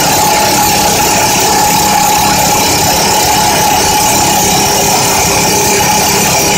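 Excavator-mounted hydraulic rock drill (FINE Breaker EX-Drill 300) boring into rock: loud, continuous very fast hammering with a steady whine running through it.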